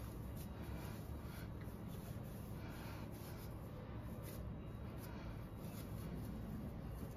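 Hands kneading and pressing a ball of rice-flour dough on a flour-dusted stone countertop: soft, irregular rubbing and squeezing sounds over a low steady hum.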